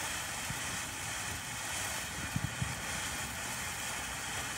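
Ground fountain firework spraying sparks with a steady hiss, with two short low pops a little past halfway.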